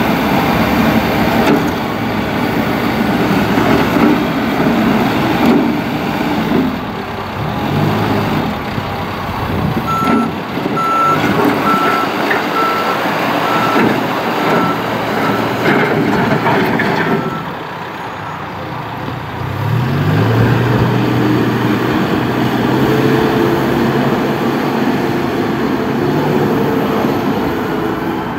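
John Deere 310SK backhoe loader's diesel engine running under load with clanking, and its reversing alarm beeping steadily for several seconds midway. Near the end the engine revs up and holds at the higher speed.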